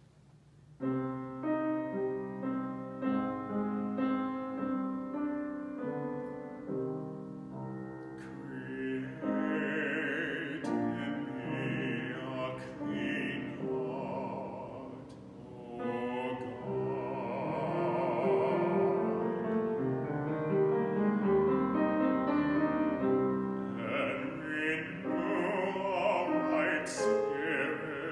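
Piano accompaniment opens the song, and from about eight seconds in a man's classically trained solo voice sings over it with a wide operatic vibrato.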